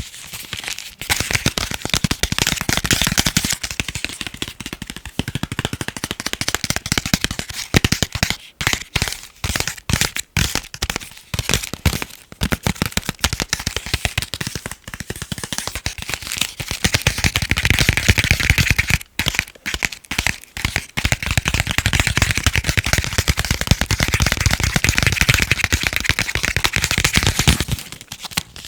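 Fast, continuous tapping on chocolate: a dense run of quick, crisp taps with a few brief breaks.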